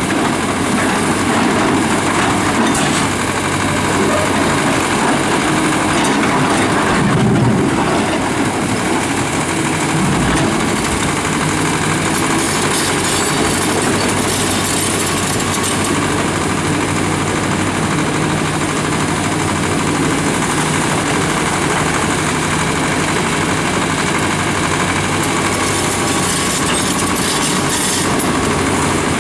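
Fiat-Kobelco hydraulic excavator's diesel engine running steadily under load while its bucket digs through gravel and rock.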